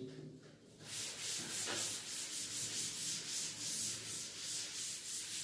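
Chalkboard being erased: an eraser rubbing chalk off the board in quick back-and-forth strokes, several a second, starting about a second in.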